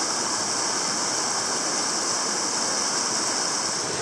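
Mountain stream rushing over rocks in small rapids, a steady even rush of water.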